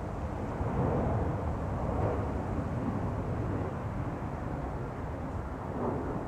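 Airplane flying overhead: a steady, deep rumble of its engines.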